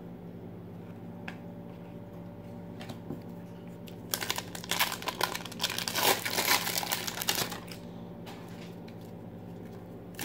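Foil wrapper of a 1992 Fleer Ultra card pack being torn open and crinkled by hand, a burst of crinkling starting about four seconds in and lasting about three and a half seconds.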